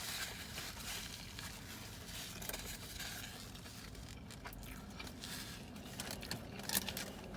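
Close-miked eating: chewing a sandwich with scattered soft crackles and clicks, and a sharper crackle near the end.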